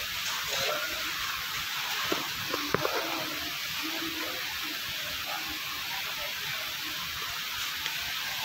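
Steady hiss of factory background noise inside a storage hall, with a couple of short knocks about two to three seconds in.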